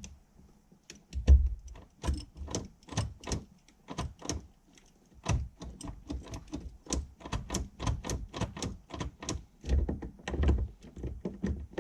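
Rapid run of small clicks and knocks, several a second, with a few heavier thumps, from hand work on a car's steering column and ignition switch.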